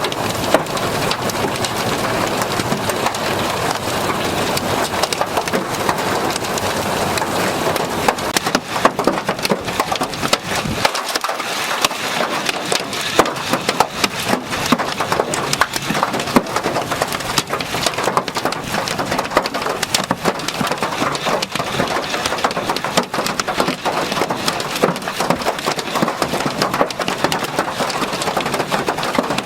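Hail pelting down in a dense, continuous clatter, with many sharp individual hits of hailstones striking hard surfaces.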